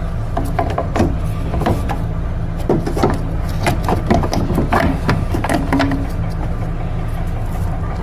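Short plastic-and-metal clicks and knocks as a Prius electric coolant pump is handled and fitted into its mounting bracket, over a steady low rumble.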